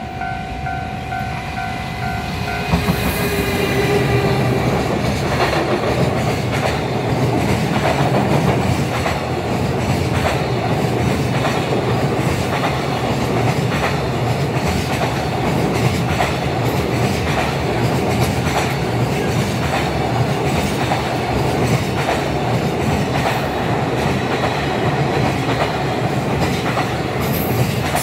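Electric locomotive and a long freight train of container wagons passing close by: a loud steady rumble with the wheels clicking in a regular rhythm over the rail joints. For the first few seconds a pulsing two-pitched tone sounds, then stops as the train noise rises.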